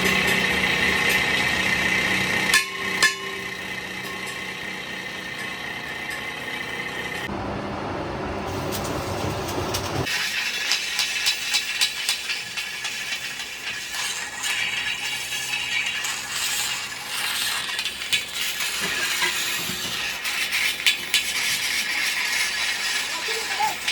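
Metalworking sounds: a machine runs steadily at first, with a sharp knock about three seconds in, then a long stretch of irregular metallic clinking and rattling.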